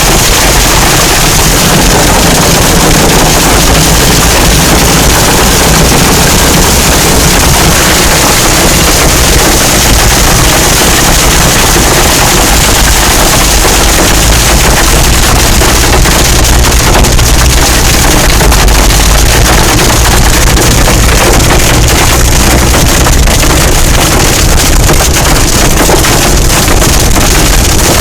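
Heavy hail pelting a car's body and windshield without a break, a loud, dense rattle of countless small impacts.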